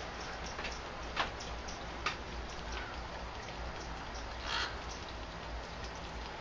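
A few short bird chirps over a steady outdoor hiss. The sharpest chirp comes about a second in and drops quickly in pitch, another follows a second later, and a rougher call comes past the middle.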